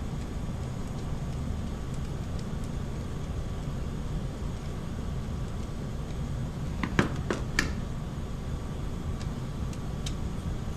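Small clicks of a hand tool and metal parts being worked while undoing an RC crawler's steering link, a cluster of three or four about seven seconds in and one more near the end, over a steady low hum.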